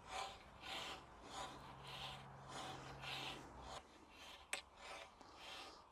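Faint, rhythmic swishing of a greenkeeper's rod, a long flexible switch, swept back and forth through lawn grass, a stroke a little under twice a second. A single sharp click comes a little past halfway.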